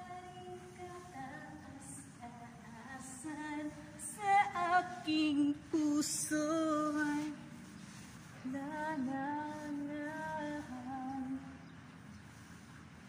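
A woman singing a slow tune in phrases, with long held notes. A short knock and a hiss cut in about six seconds in.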